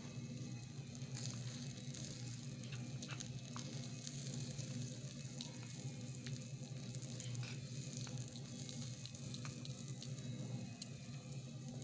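Vegetables and spices sizzling in a tiny steel wok over a small wood fire. A small steel spoon clicks and scrapes against the pan as it stirs, over a steady low hum.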